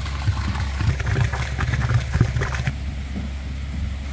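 A concrete line pump pushing concrete through a 2-inch hose into a post hole, with irregular rattling and rushing for the first two and a half seconds before the flow stops. Under it the pump's engine keeps up a steady low drone.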